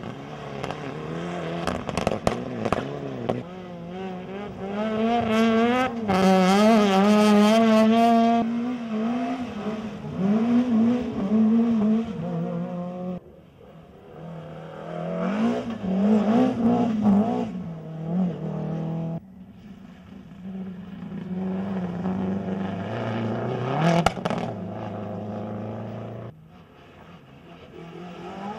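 Several rally cars in turn at full throttle through a bend, among them a Mitsubishi Lancer Evolution, a BMW E30 M3 and a Peugeot 206. Each engine revs hard, its pitch climbing and dropping through the gear changes. A few sharp cracks come about two seconds in, and one more later on.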